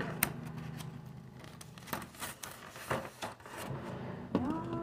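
Plastic plates being handled: a series of light clicks and taps with rubbing and scraping, over a steady low hum.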